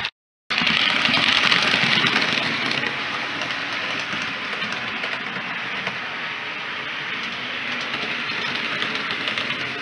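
Model train running along the track: a steady rolling rattle of wheels over rail joints. The sound cuts out for half a second right at the start.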